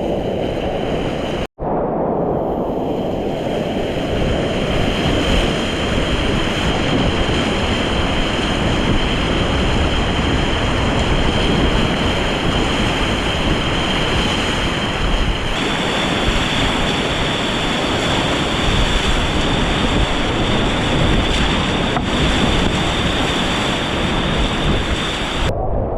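Loud, steady rushing of whitewater on a mountain river, with a momentary dropout about a second and a half in.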